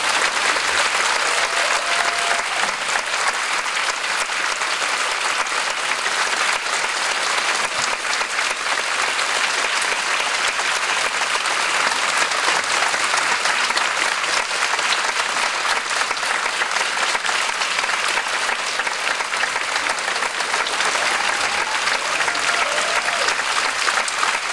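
Large theatre audience applauding steadily, a dense, even sound of many hands clapping.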